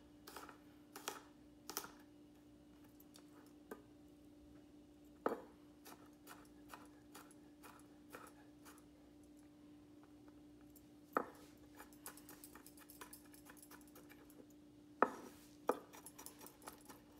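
Chef's knife mincing garlic on a wooden cutting board: irregular light taps of the blade on the wood, with a few louder knocks. A faint steady hum underneath.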